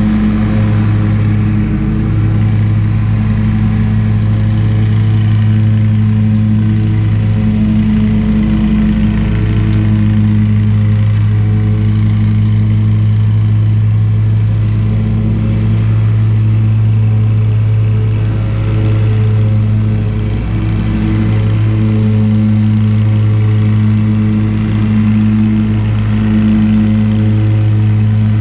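Walk-behind commercial mower's engine running steadily while mulching leaves, a constant low hum with a slight dip about two-thirds of the way through.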